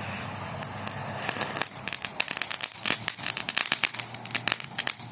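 Tiny novelty fireworks crackling: a dense, irregular run of sharp little pops, several a second, starting about a second in after a brief hiss.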